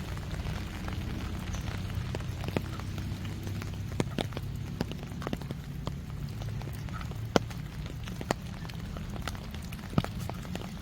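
Steady rain, with irregular sharp ticks of heavier drops landing close by; the loudest two come about seven and ten seconds in.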